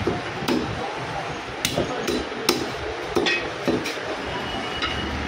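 Butcher's cleaver chopping goat meat and bone: about eight sharp, unevenly spaced chops.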